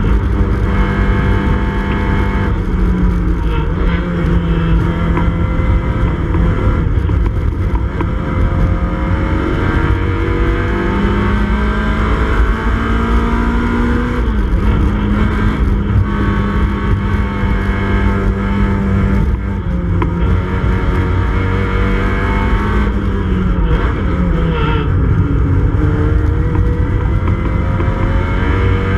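Race-prepared Mini Cooper S's A-series four-cylinder engine running hard at high revs, heard from inside the cabin. The pitch holds or climbs, then drops sharply twice, about halfway through and again near the end.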